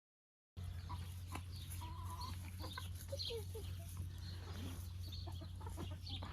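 Backyard hens clucking softly with scattered short calls, over a steady low hum. The sound begins after about half a second of dead silence.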